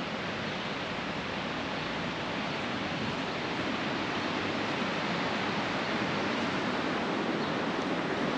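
Steady rushing of white water from river rapids, growing gradually louder.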